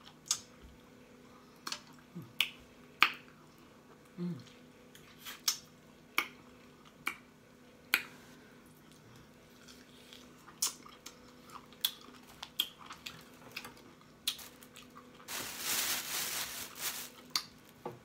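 Close-miked mouth smacking: sharp, wet lip and tongue smacks at irregular intervals, with a breathy rush of about two seconds near the end.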